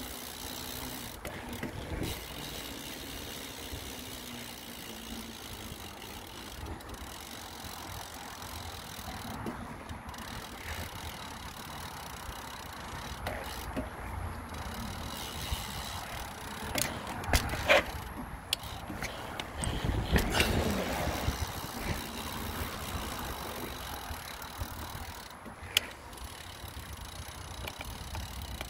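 Mountain bike being ridden over rough ground, heard through a phone on the handlebar mount: a steady low rumble of tyres and riding noise with scattered clicks and rattles. A cluster of sharp knocks comes about two-thirds of the way through, then a heavier low jolt.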